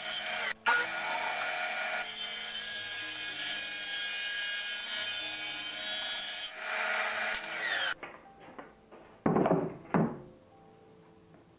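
Power saw cutting phenolic-resin plywood: a dense, steady cutting noise that stops abruptly about eight seconds in. Two short, loud rasping bursts follow, then only faint music.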